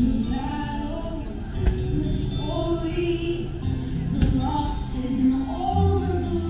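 A fireworks show soundtrack of orchestral music with singing, played loud over outdoor loudspeakers. A couple of sharp thumps from fireworks go off about two and four seconds in.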